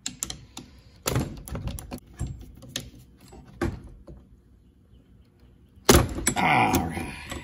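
Hands and tools working a wiper arm off its post: a run of sharp clicks and knocks, then a loud clunk about six seconds in, followed by a brief scraping clatter.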